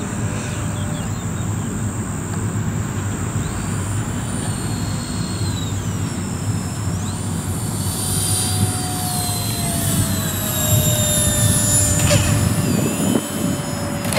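Twin 70 mm electric ducted fans of a radio-controlled model airliner whining as it comes in to land, the whine dropping, rising and dropping again in pitch with the throttle. Near the end the pitch falls as the fans throttle back on touchdown.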